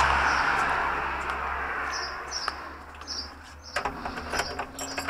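A small bird chirping, short repeated calls about twice a second, over a hiss that fades away. From about four seconds in, keys and a metal door handle click and rattle in the lock of a wooden door as it is opened.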